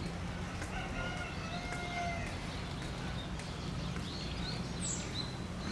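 Giant panda calling: drawn-out, high, wavering calls about a second in and again near the end, over a steady low hum.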